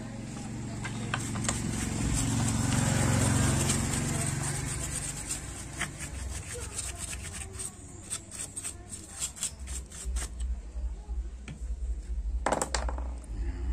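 Stiff paintbrush scrubbing a power amplifier's circuit board: a run of quick, scratchy strokes in the second half. Before them, a low rumble swells and fades over the first few seconds.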